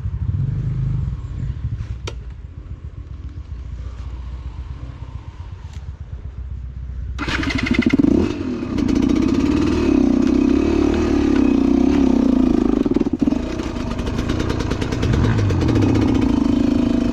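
Enduro motorcycle engine running, low and muffled at first. About seven seconds in it suddenly becomes much louder and closer, its revs rising and falling.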